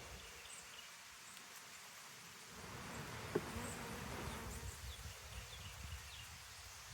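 Honey bees buzzing around an open hive, a faint steady hum. It grows slightly louder about midway, with a single light knock about three seconds in.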